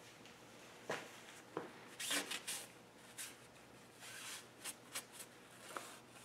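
Faint rustles and light scrapes of a cloth shop rag wiped along a turned steel bar held in a stopped metal lathe's chuck.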